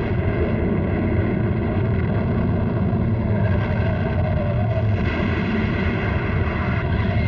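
Cartoon sound effect of an earthquake: a dense, steady low rumble.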